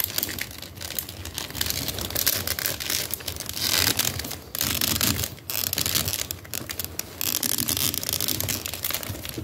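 Handling noise of a large plastic action figure being posed: hands rubbing and gripping the plastic body and limbs, a rough rustling with many scattered clicks and knocks.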